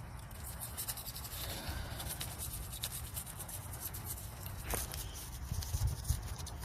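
Toothbrush scrubbing the outside of a snowblower carburetor in old gasoline: quick, scratchy brushing strokes.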